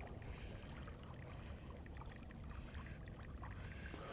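Faint water sloshing and trickling with small scattered drips, over a low rumble of wind on the microphone.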